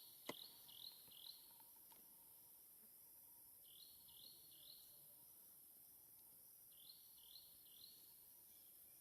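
Faint bird calls: short, high, rising chirps in groups of three or four, repeated about every three seconds, with a single sharp click just after the start.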